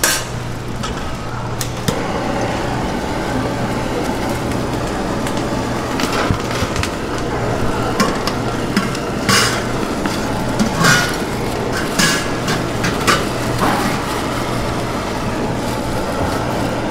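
Busy food-stall background: a steady low hum with scattered sharp knocks and clatters of utensils and cookware, several of them in the middle of the stretch.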